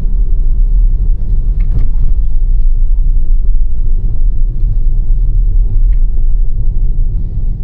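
Tesla electric car driving on a snow-covered road: a loud, steady, low rumble of tyre and road noise.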